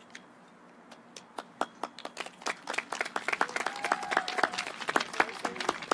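Hand clapping from a small, spread-out crowd, a few scattered claps at first and thickening into steady applause from about two and a half seconds in.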